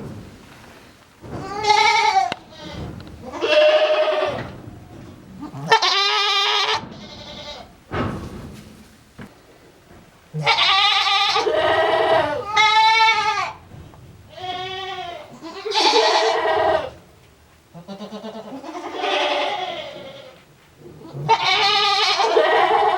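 Male goat bleating repeatedly in a strange, wavering voice: about ten calls, each a second or so long, with short pauses between them.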